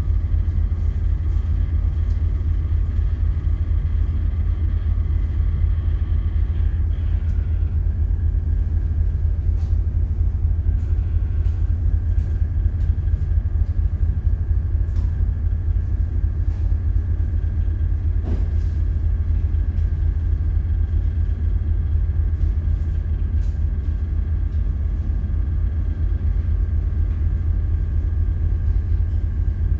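Steady low rumble of a ship's engines and machinery carried through the hull to the bridge, with a faint steady hum over it.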